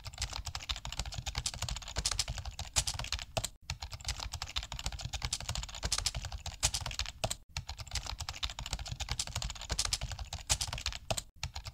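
Keyboard typing sound effect: a rapid, continuous stream of key clicks that drops out for an instant about every four seconds, as the clip loops.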